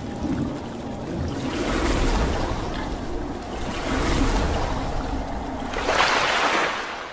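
Splashing, rushing water sound effect of an animated logo intro, surging in three swells about two seconds apart, the last the loudest, then fading out near the end.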